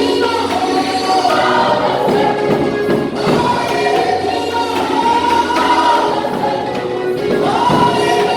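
Church choir singing a gospel worship song, several voices together on held notes that slide between pitches.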